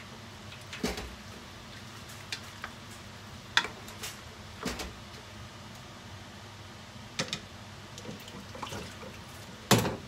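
Wooden spatula stirring vegetables in a stainless steel pot, knocking and scraping against the metal a few scattered times, with the loudest knock near the end, over a steady low hiss.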